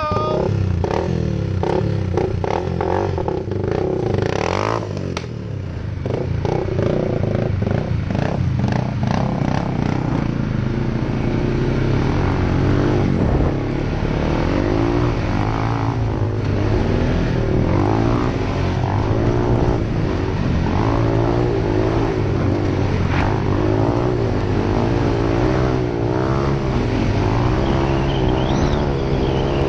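ATV engine running while riding, its pitch rising and falling over and over as the throttle is worked, with rattling from the machine over the rough ground.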